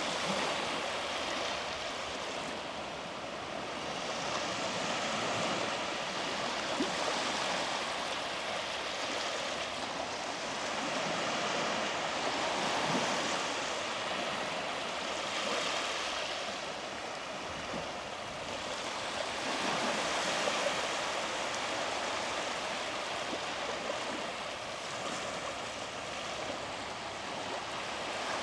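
Small sea waves breaking and washing up a beach: a steady surf hiss that swells and eases every few seconds.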